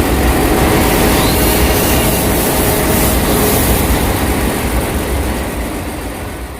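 Loud, steady machinery noise with a deep rumble, like a heavy engine running, fading out near the end.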